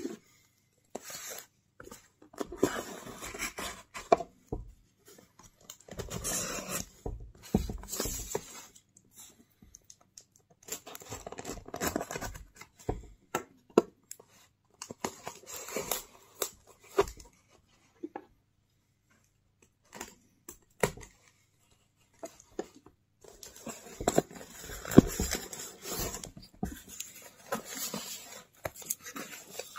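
Packing tape being peeled and ripped off a cardboard box, in several rounds of rasping tears with short pauses between, along with the cardboard being handled.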